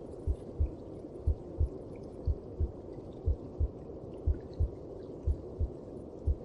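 A mother's heartbeat as heard from inside the womb: a slow, even lub-dub, one pair of low thumps about a second apart, over a steady low whooshing.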